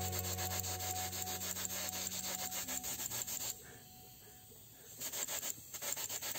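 Gravity-feed paint spray gun hissing in rapid, chopped bursts as white paint is sprayed onto a small metal part. The spraying breaks off for about a second and a half near the middle, then starts again.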